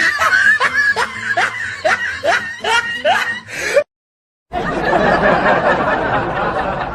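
Laughing sound effect: a run of short snickers, each rising in pitch, about two to three a second, that cuts off suddenly just past halfway. After a brief dead gap, a different, denser laugh starts.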